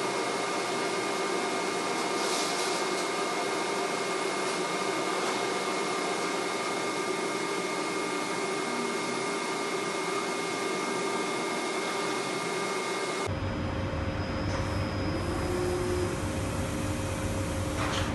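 Steady machine hiss and hum from a Miller robotic welding setup, with a few steady whining tones; about thirteen seconds in the sound changes abruptly to a lower, rumbling machine noise.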